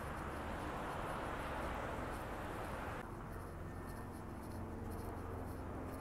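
City street ambience: a steady rush of traffic noise, which cuts at about three seconds to a quieter background with a low hum.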